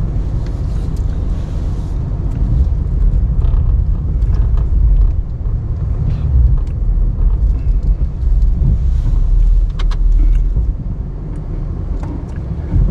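Ram 1500 Classic pickup running steadily with a low rumble while pushing snow with its plow blade, with a few light knocks along the way.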